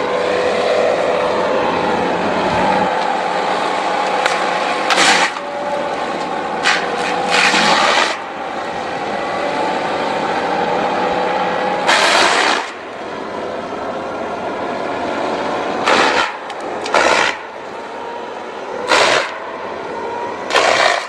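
Excavator-mounted rotary mulching head spinning with a steady machine whine and chewing down a standing tree trunk, with repeated short, loud bursts of grinding and chipping as the teeth bite into the wood.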